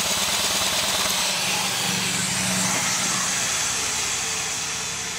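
Electric drill on the flywheel nut spinning a two-cylinder 15 HP Johnson outboard over for a compression test: a steady whir with a fast pulsing, slowly getting quieter over the last couple of seconds.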